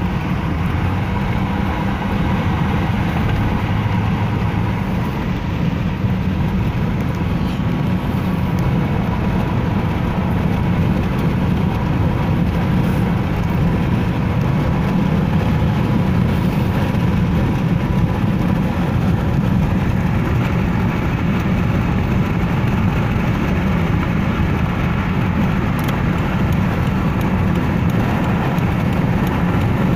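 Steady road noise inside a car's cabin while driving at highway speed, a constant low rumble.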